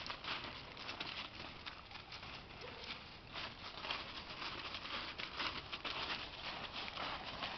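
Footsteps of a person and a dog shuffling through dry fallen leaves: an irregular rustling crunch, several crackles a second, rising and falling in loudness.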